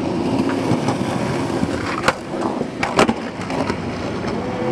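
Skateboard wheels rolling over concrete, a steady rumble, with two sharp clacks about two and three seconds in.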